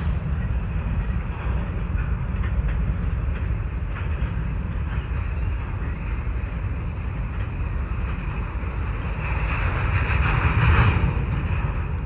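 Freight train of covered hopper cars rolling away down the track: a steady low rumble of wheels and cars, with a louder swell of wheel noise near the end.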